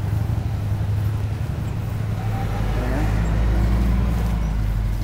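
Wind buffeting the microphone: a steady low rumble that grows stronger about two seconds in.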